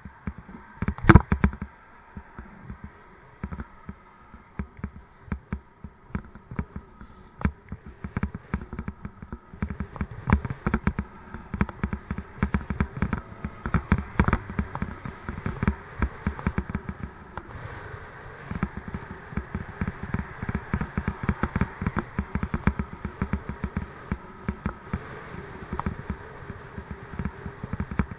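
Rattling and knocking from a bicycle ride over rough tarmac, road vibration picked up as a dense stream of small clicks and bumps. There is one sharp loud knock about a second in, and the rattle gets busier from about ten seconds on.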